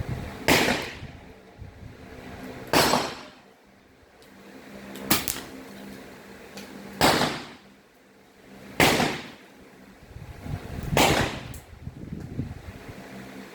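Air rifle shots: six sharp reports, each with a short ringing tail, fired roughly every two seconds.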